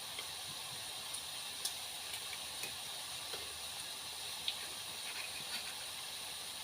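Bacon frying in a pan: a steady quiet sizzle with a few faint crackles.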